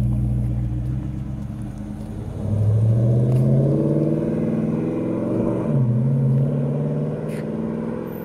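Dodge Challenger R/T's V8 through a Borla exhaust, pulling away. The note climbs under acceleration about two and a half seconds in, dips and climbs again midway, then fades as the car drives off.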